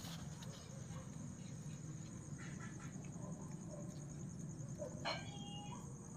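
A puppy gives one short, high whimper about five seconds in, with a couple of fainter whimpers before it, over a steady high cricket trill and a low hum.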